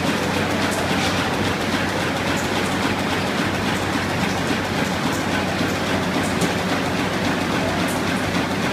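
Web stacker running: steady machine noise with a constant low hum and a few light ticks.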